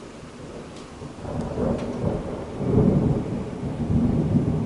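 Thunder rumbling from a severe thunderstorm. It builds about a second in and rolls on in uneven low surges, loudest around the middle, over the hiss of heavy rain.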